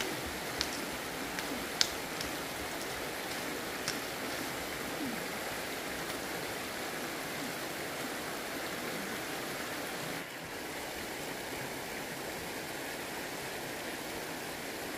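Shallow stream running over rocks, a steady rushing water noise, with a few short sharp clicks in the first few seconds. The rush dips slightly about ten seconds in.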